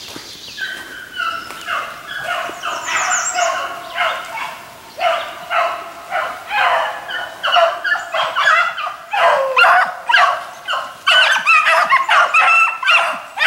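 A pack of beagles baying on the track of a hare, many voices overlapping, growing steadily louder as the hounds close in on the scent line.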